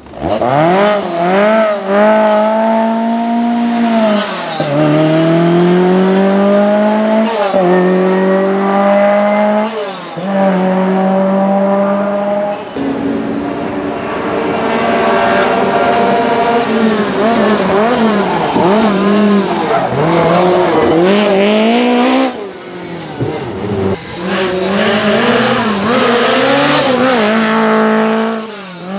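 Lancia Rally 037's supercharged four-cylinder engine revving hard under acceleration, its pitch climbing and then dropping sharply at each upshift, several times over.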